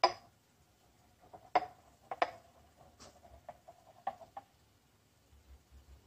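A scatter of light clinks and taps from a stainless steel milk jug and a ceramic cup handled during a latte art pour. The loudest clink comes right at the start, two more follow about a second and a half and two seconds in, and fainter ones run until about four and a half seconds in.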